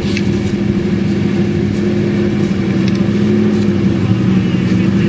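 Land Rover Discovery engine running steadily at a nearly constant pitch, with a few short knocks.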